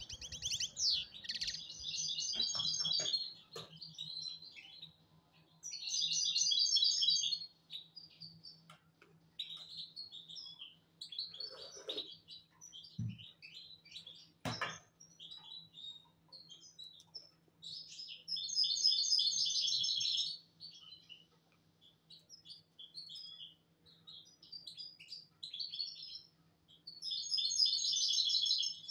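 European goldfinch singing: bursts of rapid, high twittering phrases, the longest about two seconds, four times, with scattered single chirps between. Two sharp clicks come near the middle, over a faint steady low hum.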